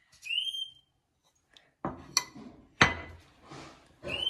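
A short rising whistle-like squeak, then several sharp clicks and knocks of a knife and utensils against a ceramic plate and plastic tub as preserved meat is taken out and cut. A second rising squeak comes near the end.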